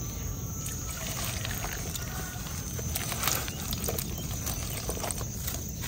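Small live fish flapping in a shallow metal basin as hands rummage through the wet heap, making irregular soft wet pats and light clicks.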